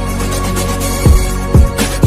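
Electronic background music: steady held synth notes over deep kick-drum hits that drop in pitch, about three in two seconds.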